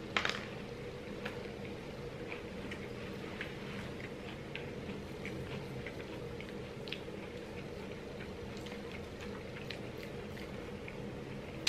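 Faint chewing of flaky puff pastry: scattered small crisp ticks over a steady low room hum, with a brief louder noise right at the start.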